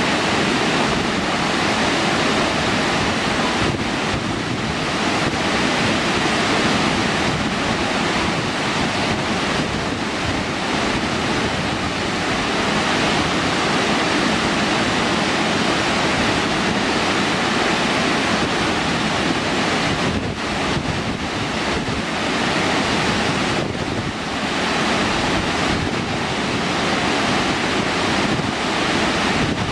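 Burney Falls pouring into its plunge pool: a loud, steady rush of falling water.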